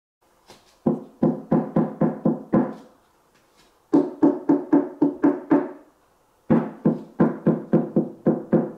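Knuckles rapping on the side panel of a Dayton Audio T652 tower speaker's MDF cabinet in three quick runs of knocks, three to four a second. Each knock rings briefly with a hollow pitched tone: the resonance of the thin, lightly braced cabinet walls.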